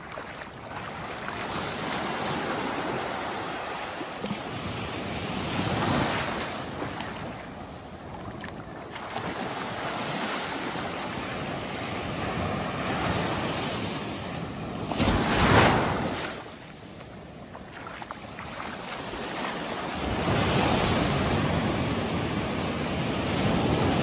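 Gentle surf: small waves breaking and washing up over sand, swelling and fading every few seconds, the loudest rush about halfway through, with wind on the microphone.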